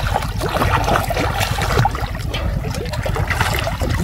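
Canal water splashing and trickling in quick, irregular bursts as someone wades and works a fishing net, over a steady low rumble.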